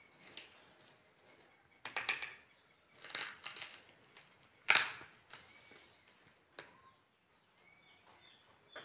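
A ripe watermelon being cut and split apart on a plastic cutting board: crisp crunching and cracking in a few short bursts, the loudest a little under five seconds in.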